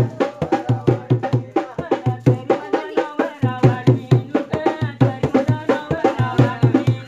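Dhol-style barrel drum beaten by hand in a steady dance rhythm of about three deep strokes a second, with a brief pause partway through. Voices sing over the drumming.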